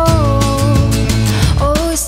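Background pop music: a held, gliding melody line over bass and a steady beat.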